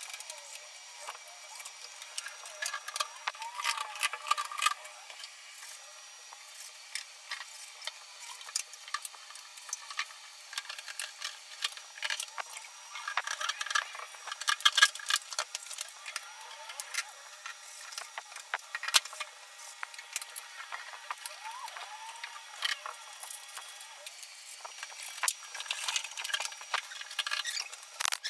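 Irregular clatter of flat-pack furniture assembly: metal screws and fittings clinking and wooden panels being knocked and handled, in scattered sharp clicks and knocks that come thicker in a few spells.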